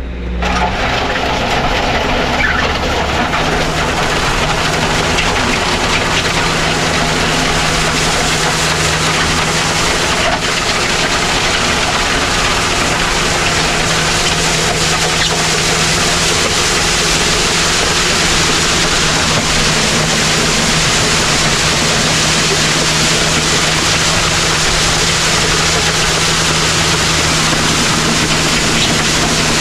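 Kubota LX4020 compact tractor's diesel engine running steadily under load while pulling a land plane to grade a gravel parking lot.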